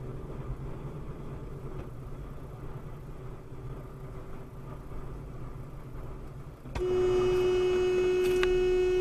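Low road and engine rumble of a moving vehicle, heard from inside it. About seven seconds in, a horn sounds one long steady note, far louder than the road noise.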